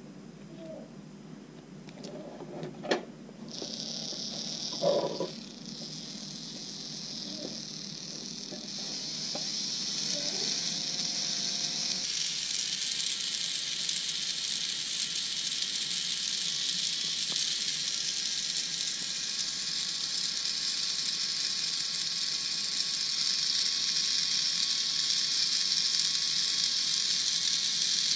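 Micro servo motor driving a small 3D-printed cardan driveshaft, running with a steady high-pitched whir that grows louder about twelve seconds in. Two sharp clicks come in the first five seconds.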